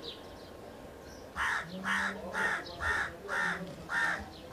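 A bird's harsh calls, about six in a row at roughly two a second, starting about a second and a half in.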